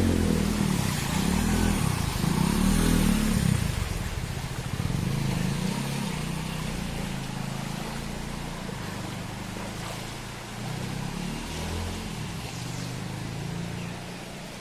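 A steady engine hum under the broad rush of floodwater flowing across a street. It is louder in the first few seconds, then settles lower.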